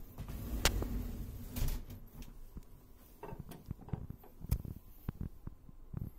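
Wooden louvred cupboard door being moved and shut: a scraping slide with a sharp knock less than a second in, then scattered light knocks and clicks, one sharper about four and a half seconds in.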